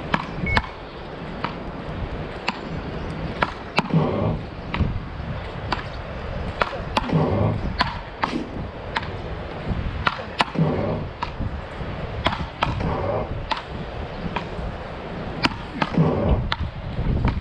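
Wooden beach-racket paddles hitting a small ball back and forth in a fast rally: a string of sharp knocks, about one or two a second. Short vocal bursts come every few seconds.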